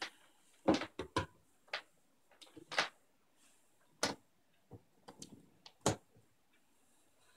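About ten sharp clicks and knocks, irregularly spaced: handling noise as a metal-cased bench power supply and its cable are moved and set up on a desk.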